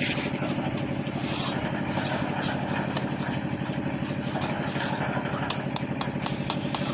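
An engine running steadily at idle with a fast, even pulse, and light clicks in the second half.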